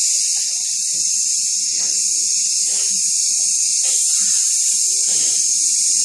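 A long, steady hissing exhale ('sss') held for as long as possible: a breath-control exercise for singing.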